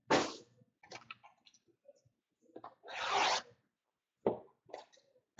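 Handling of trading cards and their cardboard hobby box: a short rasping rub just after the start, light rustles, a longer rasp about three seconds in, and a sharp click a little after four seconds.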